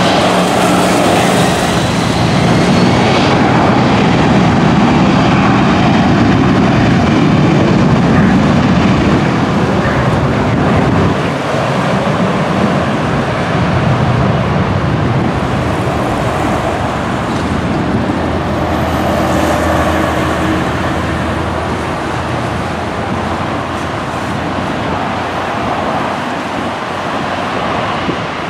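Jet airliner engines running loudly as aircraft land and move on the runways, a steady rumble and rush that eases a little in the second half.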